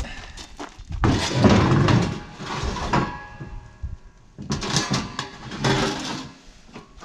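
An empty 100-lb steel propane cylinder being loaded onto a pickup's plastic bedliner and slid in: two spells of scraping and knocking, with a brief ringing in between.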